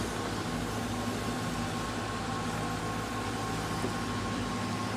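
Diesel engine of a SANY SY155W wheeled excavator running steadily as it digs, an even hum with no sudden knocks.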